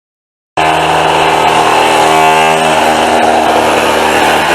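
Electric chipping hammer (a small jackhammer) running in a steady, rapid hammering, breaking out a shower wall to reach the shower valve. It starts abruptly about half a second in.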